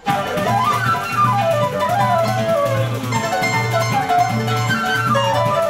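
Brazilian choro played by flute, bandolim and acoustic guitar. The flute plays quick runs of notes up and down over a steady plucked bass line of about two notes a second.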